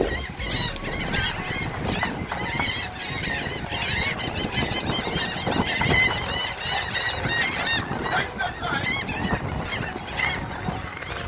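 A large flock of birds calling all at once: a dense, unbroken chatter of many short, high, overlapping calls.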